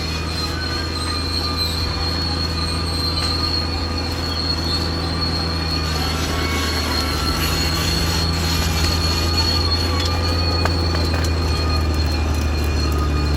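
Caterpillar D6R XL bulldozer's diesel engine running steadily under load, with a steady high-pitched metallic squeal from the steel tracks over it.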